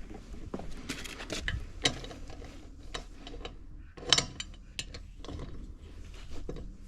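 Irregular metallic clicks and clatter of wrench tools being handled, with ratchet-like clicking; the loudest sharp clicks come about two seconds and about four seconds in.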